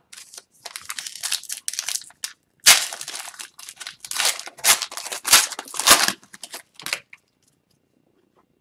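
A foil hockey card pack wrapper being torn open and crinkled by hand, a run of sharp crackles that stops about seven seconds in.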